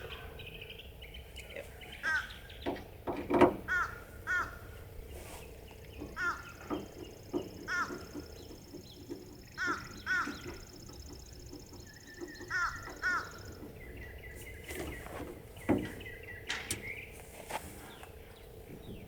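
Crows cawing over and over in short calls, often two at a time. A few sharp clicks and knocks come from the tailgate latch as the lock is fitted, the loudest about three and a half seconds in.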